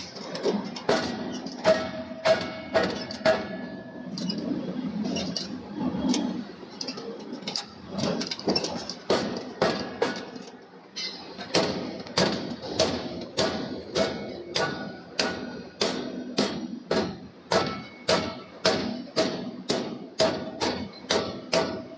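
Hammer blows forging steel, each strike sharp with a short metallic ring. The blows come unevenly at first, then settle from about halfway into a steady beat of about two a second.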